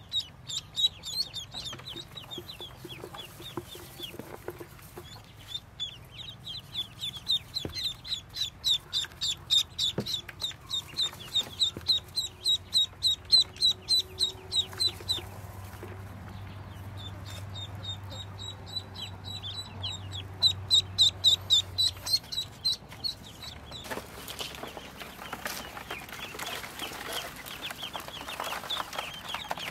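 Newly hatched Muscovy ducklings peeping: long runs of rapid, high peeps, several a second. Near the end the peeping turns into a denser chorus of many ducklings at once.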